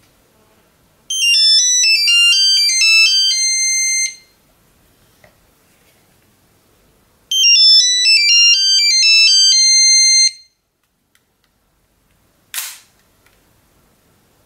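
Nokia 7110 ringing with an incoming call: a fast beeping monophonic ringtone melody, played twice for about three seconds each with a pause between. Near the end comes a short snap as the phone's spring-loaded keypad slide flips open, answering the call.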